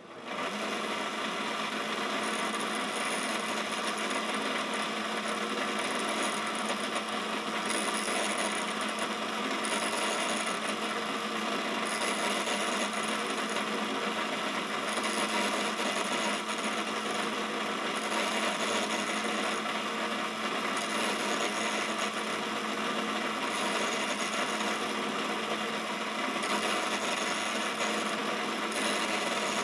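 Quorn tool and cutter grinder running steadily while its grinding wheel sharpens the flutes of a high-speed steel end mill, with a higher hiss coming and going every couple of seconds as the cutter is passed across the wheel.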